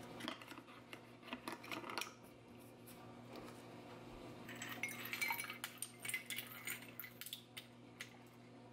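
Metal spoon stirring a drink in a ceramic mug, a quick run of clinks against the mug's inside about halfway through. A few light knocks on the counter come first.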